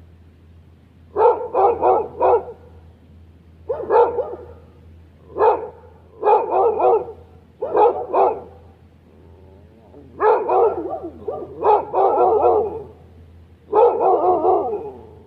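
Dog barking in repeated bouts of several quick barks, with pauses of a second or two between bouts.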